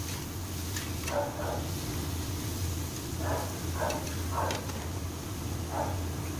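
Metal spatula scraping and clinking against a steel wok in several short strokes as eggplant slices are stir-fried in oil, over a steady low hum.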